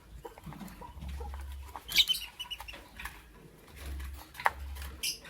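Lovebird giving a few short, sharp chirps, the loudest about two seconds in, with small scratching and tapping sounds between. A low hum comes and goes underneath.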